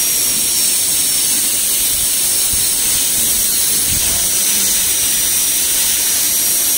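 High-speed air-turbine dental handpiece running steadily with its water spray, a high whine over a loud hiss, as its bur cuts the palatal surface of a model incisor.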